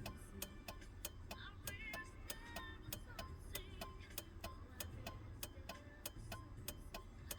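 Steady, rapid clicking at about three clicks a second, the even ticking of a turn-signal or hazard flasher cycling.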